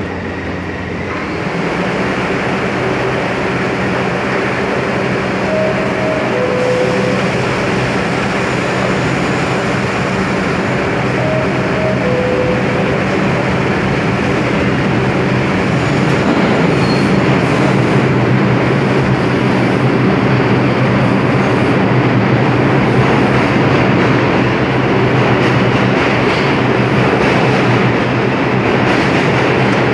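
A New York City subway 3 train standing at the platform and then pulling out. A falling two-note door chime sounds twice, then the running noise of its motors and wheels builds as it accelerates out of the station.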